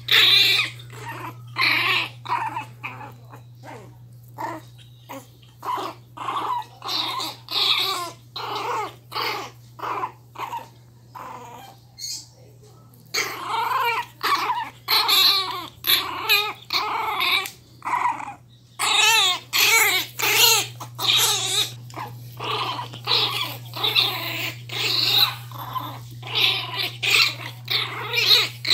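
Miniature pinscher puppies play-growling as they tug at a rag toy between them: a long string of short growls, with a brief lull about halfway through. A steady low hum lies underneath.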